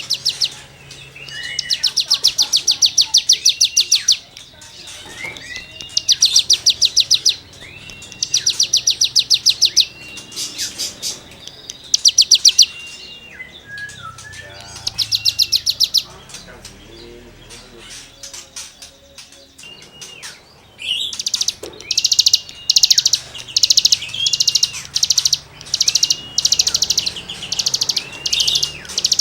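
A cigun songbird singing in rapid, rasping trills ('gesekan'), each a fast run of high notes lasting one to two seconds, separated by short rising-and-falling whistles. In the last third the trills come shorter and closer together.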